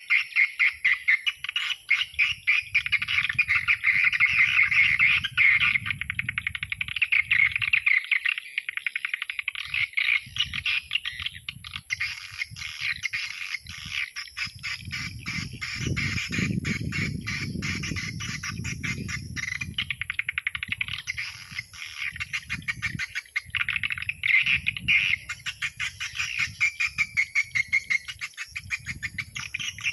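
Swiftlet calling sound, a recording played through the loudspeakers of a swiftlet house: a dense, fast run of chirps, clicks and trills that goes on throughout. This is the dusk 'tarikan' lure used to draw swiftlets into the house to roost and nest. A low rumble comes and goes under it, strongest midway.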